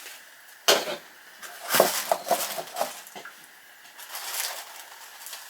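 Handling noise as a fabric-covered headband of mouse ears is put on: a sharp knock about a second in, then a short cluster of rustles and clicks, and a softer rustle near the end.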